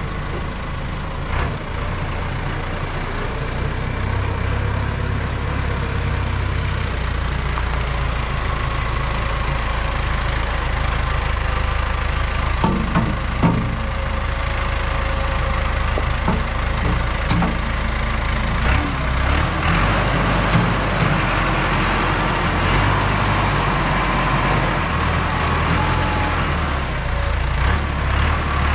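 Engine running steadily with a low, even rumble, with a few short knocks and clatters around the middle.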